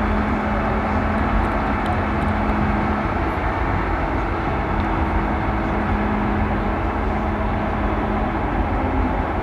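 Steady low engine-like drone with a constant hum, running evenly throughout.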